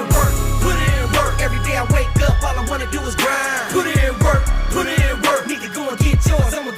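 Hip hop music: a beat with regular drum hits and deep bass, under a pitched vocal or melodic line that glides up and down. The deep bass drops out a little over three seconds in.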